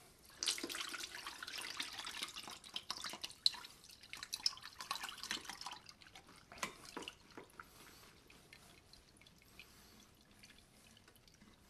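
Vanilla extract poured from a glass half-gallon jar through a mesh strainer into a plastic bucket, splashing and trickling for about five seconds. Then a few drips and soft knocks as the soaked vanilla beans slide out of the jar into the strainer, fading away.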